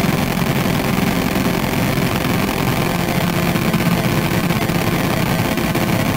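Harsh noise music: a loud, continuous wall of distorted electronic noise filling the whole range from low to high, heaviest in the low end, with no beat or melody.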